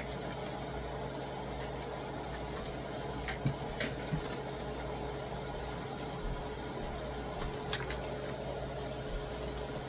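Skillet of pork and red cabbage cooking over a gas burner: a steady soft hiss with a low hum, broken by a few light clicks and knocks.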